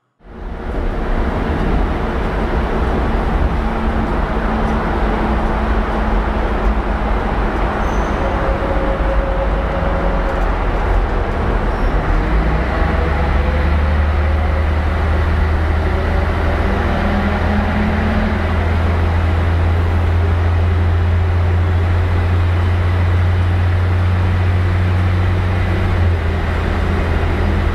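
Scania L113 bus's 11-litre engine running loud, heard from inside the cabin over road noise. Its low drone grows stronger about halfway through and eases a little near the end.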